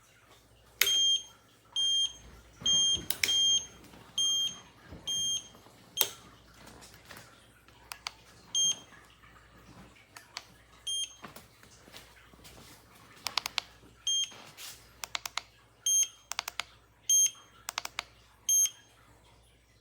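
Short electronic beeps from the ECOROAD EC6 electric scooter's controls: a dozen or so on one high pitch, irregularly spaced and some in quick pairs, with sharp clicks in between.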